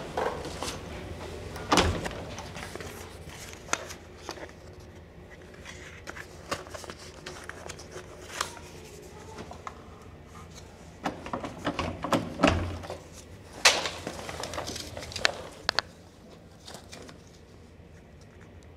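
Scattered knocks and handling clicks, several sharp ones in a row a little past halfway, over a faint steady low hum of a building's interior.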